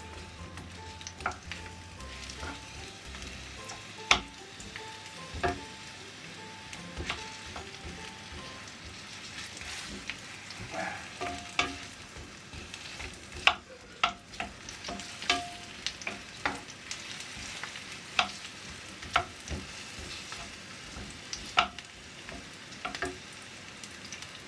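Onion chunks sizzling in hot vegetable oil in a frying pan, stirred with a wooden spoon that knocks sharply against the pan now and then.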